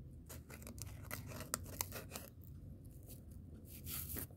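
Paper napkin rubbing and dabbing against an acrylic nail to clear filing dust: faint, irregular scratchy rustling and small clicks over a low steady hum.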